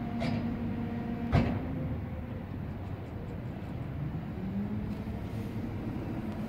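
Steady low rumble of city traffic, with one sharp knock about a second and a half in.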